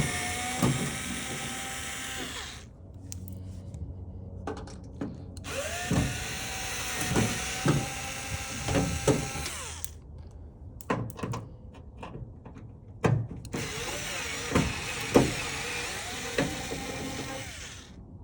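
Power drill running in three long runs of about four to five seconds each. Its motor speeds up at the start of each run and winds down at the end, with a few knocks in between.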